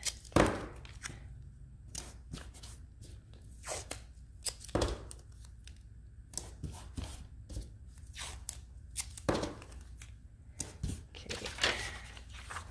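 Hands working green masking tape and paper: tape pulled from the roll and torn, paper rustling and being pressed down, in scattered short crackles and taps, the sharpest just under half a second in.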